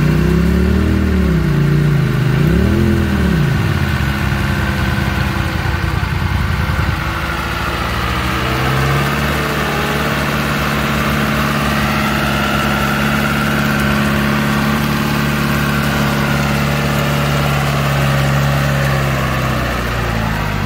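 Off-road vehicle's engine revved up and down twice, then held running at a steady speed.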